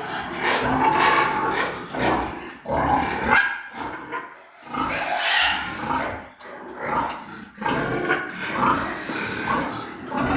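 Pigs grunting in repeated rough bursts, with a louder, higher-pitched call about five seconds in.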